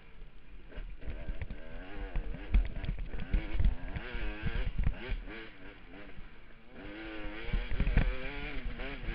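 KTM dirt bike engine revving up and down repeatedly as the throttle is worked over rough trail. Heavy low thumps and rumble hit the helmet-mounted microphone.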